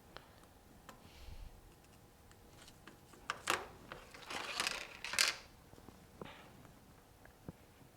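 Handling noises on a phone-repair bench: scattered small clicks, with a few short scraping, rustling bursts near the middle.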